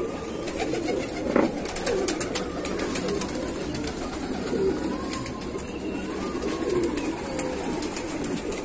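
A flock of domestic pigeons in a loft cooing, short low coos overlapping one after another, with a few light clicks about two to three seconds in.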